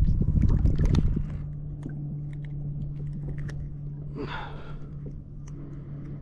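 Hands handling a tautog over the kayak: a loud rustle and knocks in the first second, then scattered small clicks, with a short breathy vocal sound about four seconds in. A steady low hum runs underneath.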